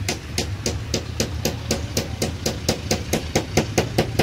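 Rapid, regular clicking, about five sharp ticks a second, over a steady low rumble.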